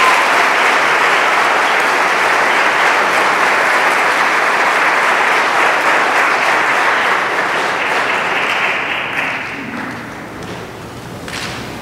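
Audience applauding, a steady clapping that dies away about three-quarters of the way through.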